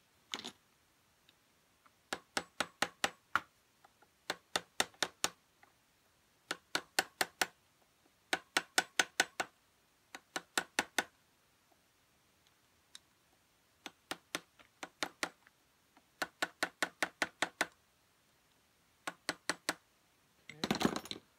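Light hammer taps on a metal punch, bending back the locking tab on a nut of a Kawasaki H1/H2 engine. The taps come in quick runs of four to eight, about five a second, with short pauses between runs. A brief clatter comes near the end.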